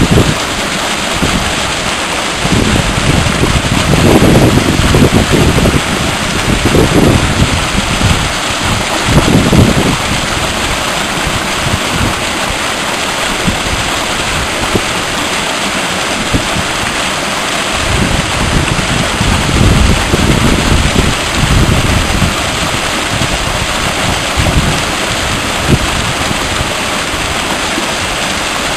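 Steady rush of a fast-flowing mountain river, with gusts of wind buffeting the microphone now and then.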